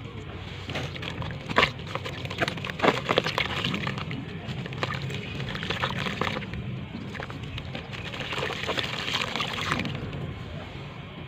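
Clumps of brown sand crumbling and crunching, with sharp crisp cracks scattered throughout, a cluster of the loudest about two to three seconds in, and a crackly crumbling hiss between them.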